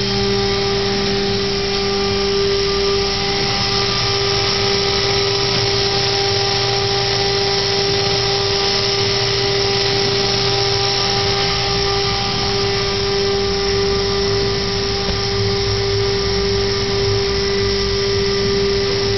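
Thermoforming machine running: a loud, steady mechanical drone with one strong steady hum tone and several fainter ones over an even hiss, unchanging throughout.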